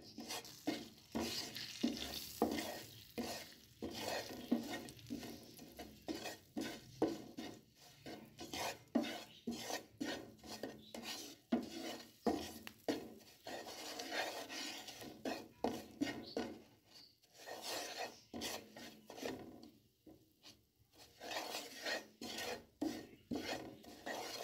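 Slotted wooden spatula stirring and scraping ground spices and anardana around a non-stick frying pan in a little oil, lightly roasting them: quick repeated scraping strokes, about two a second, with a short pause near the end.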